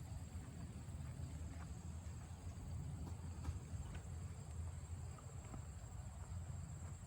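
Footsteps walking through a grassy pasture, faint soft steps over a low, steady rumble.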